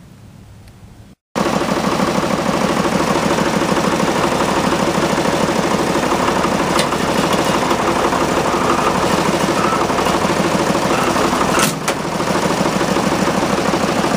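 Loader tractor engine running steadily as the hydraulic loader arms raise the bucket to take up a lifting strap; it starts abruptly about a second in. Near the end there is a sharp crack as the strap gives way under a load that is too much for it.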